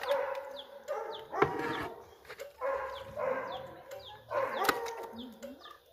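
Several dogs barking and whining in about four bursts, their calls overlapping.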